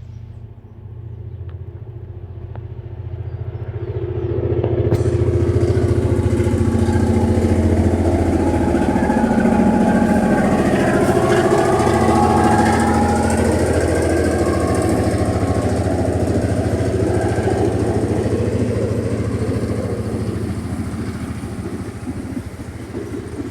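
GM GR12W diesel-electric locomotive's engine running under load as it approaches and passes, a deep steady engine drone that grows louder over the first five seconds, holds, then eases off near the end.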